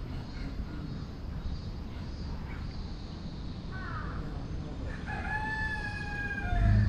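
A rooster crowing: a short call about four seconds in, then one long crow that falls in pitch at its end. A low rumble starts near the end.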